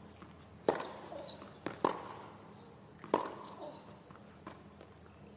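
Tennis rally on a hard court: three sharp racket strikes on the ball, a little over a second apart, with fainter knocks between.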